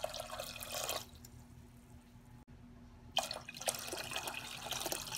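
Water pouring and splashing from a glass measuring cup into a stainless steel pot of pickling liquid, in two pours: the first stops about a second in, the second starts about three seconds in and runs on.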